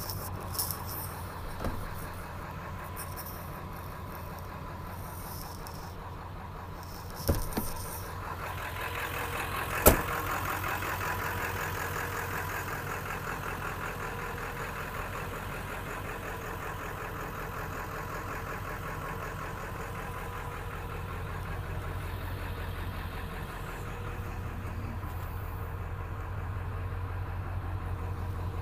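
1996 Ford F-250's 7.3 L Powerstroke turbo-diesel V8 running steadily at idle. It is muffled inside the cab at first, then louder with more diesel clatter from about eight seconds in, once heard from outside. There are two sharp clunks about seven and ten seconds in.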